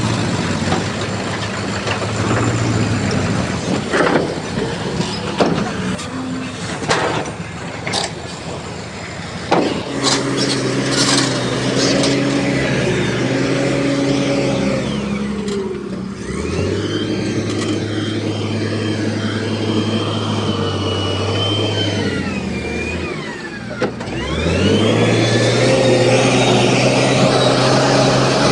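Diesel engine of a heavy earthmoving machine working. Sharp knocks and clanks come in the first part, then the engine revs up twice, each time holding high for several seconds; the first rise drops back before the second.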